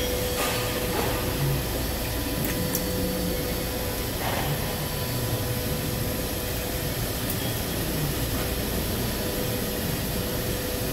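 Steady machine whir and hiss with a faint held hum, and a few light clicks.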